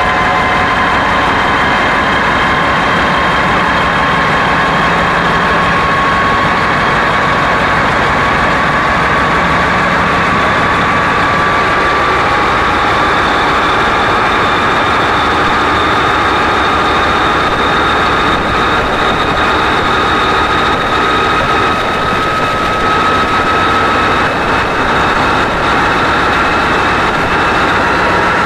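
Kolomna 5D49 V16 diesel engine of a Class 232 'Ludmilla' locomotive running loud at close range while its speed is raised towards maximum rpm. A high whine climbs slowly in pitch through most of the stretch and levels off about three-quarters of the way through.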